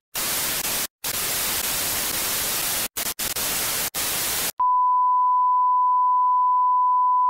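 Television static hiss that cuts out briefly a few times, then gives way about four and a half seconds in to a steady, high test-card tone, the beep that goes with colour bars.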